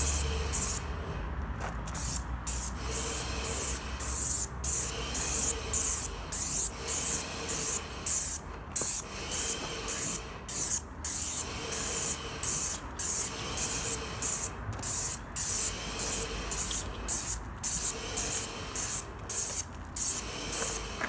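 Wagner airless paint sprayer hissing as its gun atomises fence paint for a light mist coat. The hiss pulses about twice a second, with brief dips between pulses.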